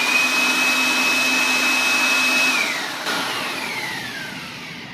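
Jakmister 500W forward-curved electric air blower running at full speed: a loud rush of air with a steady high whine. About two and a half seconds in, it is switched off, and the whine falls in pitch as the motor winds down.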